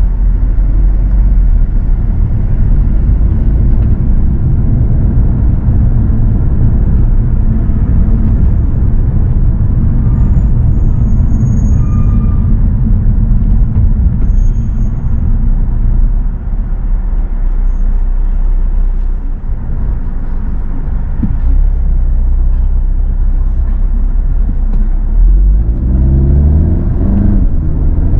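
A car driving: a steady low rumble of engine and road noise. Near the end the engine's pitch rises as it accelerates.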